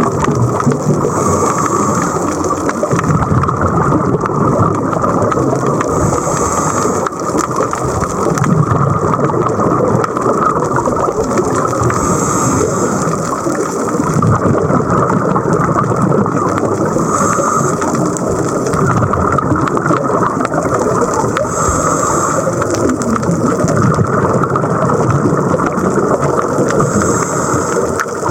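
Scuba diver breathing underwater through a regulator: a short hiss on each inhale about every five seconds, with rumbling exhaled bubbles in between, over a steady wash of underwater noise.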